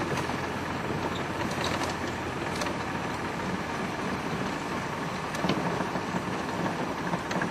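Open safari 4x4 driving along a dirt road: steady engine and tyre noise, with a few light clicks.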